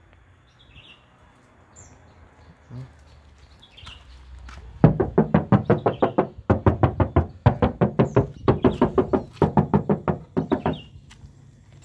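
Knuckles rapping on the sheet-steel rear quarter and side door panels of a 2000 Toyota Kijang LGX: a fast run of hollow knocks, about five a second, in several bursts that start about five seconds in and stop shortly before the end, each knock ringing briefly.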